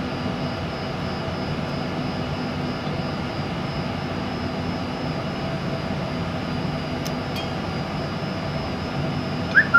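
A steady machine-like hum holding a few constant tones throughout, with a couple of faint clicks about seven seconds in and a short rising squeak just before the end.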